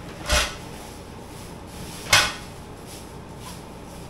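Two short knocks, about two seconds apart, from a new floor lamp and its cardboard box being handled during unpacking; the second is the louder.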